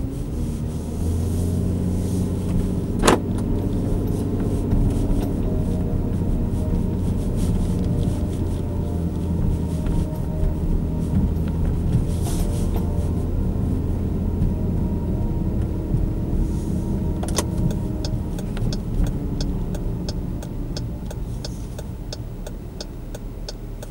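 Car engine and road noise heard from inside the cabin while driving, a steady low hum. A sharp click comes about three seconds in, and near the end an even, quick ticking sets in, like a turn signal, as the car nears an intersection.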